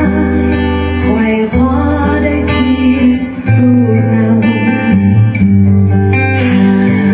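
Recorded guitar music with a steady bass line, played through a Sansui 500A tube stereo receiver that is being sound-tested after repair.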